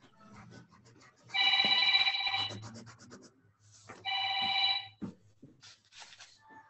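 A phone ringing: an electronic ring made of several steady tones, sounding twice, once about a second and a half in and again about four seconds in, the first ring longer and louder.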